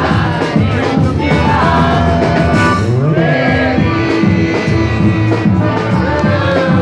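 Forró band playing live at full volume with a steady beat, a woman singing the lead vocal over it.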